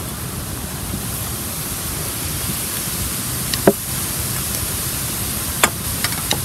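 A steady hiss with two sharp knocks, about three and a half and five and a half seconds in, and a few light ticks near the end, as wooden struts are handled.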